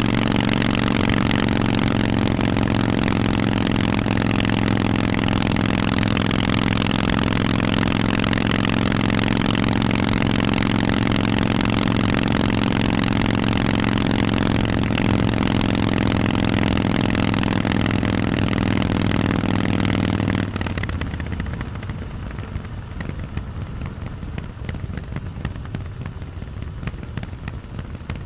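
Harley-Davidson Forty-Eight's 1200 cc Evolution V-twin through loud Vance and Hines exhausts, running at a steady speed with an even exhaust note. About 20 seconds in the steady note cuts off suddenly, leaving a quieter, irregular crackle and rumble.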